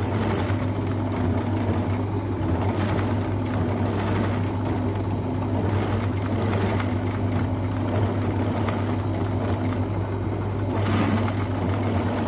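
Singer 95K40 industrial sewing machine, driven by its clutch motor through a leather belt, stitching through veg-tan leather. The rapid clatter of the needle and mechanism runs over the steady hum of the motor, with short lulls in the stitching about two, five and ten seconds in.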